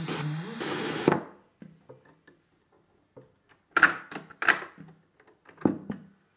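Radio sound from an ITT Touring 120 radio-cassette recorder cuts off with a click about a second in. After a pause come several loud mechanical clicks and clunks as the cassette deck's piano keys are pressed to start the tape.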